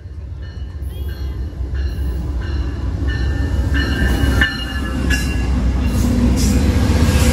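Amtrak GE Genesis diesel locomotive leading a passenger train, its engine rumble and rolling wheels growing steadily louder as it approaches and passes close by.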